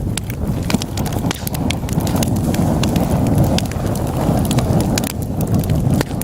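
Wood fire burning in a fireplace: a steady low rush of flames with frequent sharp crackles and pops from the burning logs, several a second.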